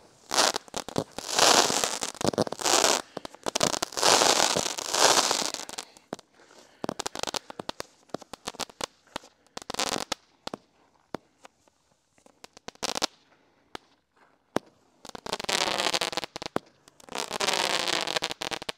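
Small consumer firework cakes going off in a fused chain. Dense crackling runs for about six seconds, followed by scattered single pops, then a second stretch of crackling near the end.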